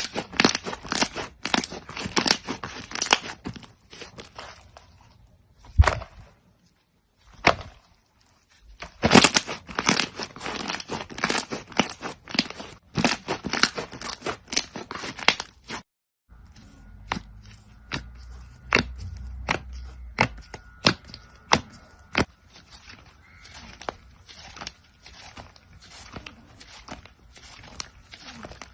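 Crunchy slime being squeezed and pressed by hand, giving dense runs of crackles and pops. After a brief break about halfway, the pops come sparser and sharper.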